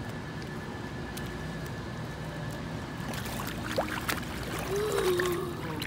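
Swimming pool water sloshing and lapping as a person wades down the steps into the pool, over a steady background hiss. A faint voice comes in near the end.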